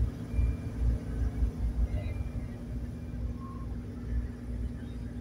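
Sightseeing boat's engine running steadily, with propeller wash churning behind the stern. Wind buffets the microphone in uneven low gusts, heaviest in the first couple of seconds.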